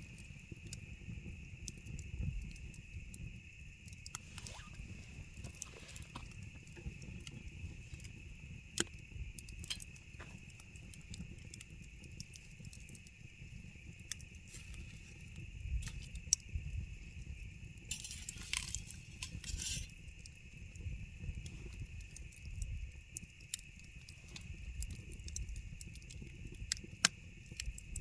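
Campfire crackling, with scattered sharp pops of burning wood over a low rumble of the flames and a steady high whine underneath; a short hiss rises from the fire about eighteen seconds in.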